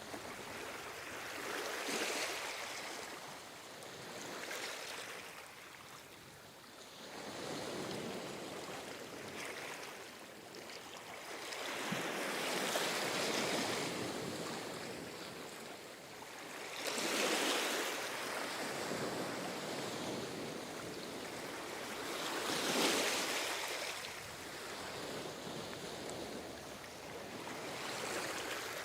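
Ocean waves surging in and washing back, the noise swelling and falling away every few seconds, with a few surges louder than the rest.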